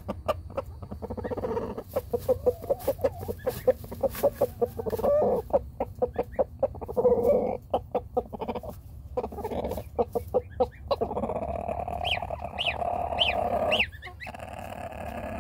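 Rooster clucking in a quick run of short low notes while sitting in a hay nest. Near the end come a few sharp, high, rising peeps from goslings.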